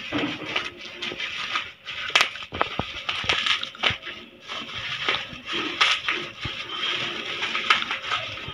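Parcel packaging crinkling and rustling as it is handled and torn open, with many sharp crackles scattered throughout.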